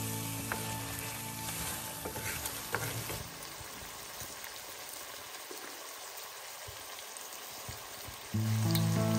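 Lamb curry frying and sizzling in a stainless steel pot while a wooden spoon stirs it, with a few sharp knocks of the spoon against the pot. The stirring stops about three seconds in and the steady sizzle carries on. Background music comes in loudly near the end.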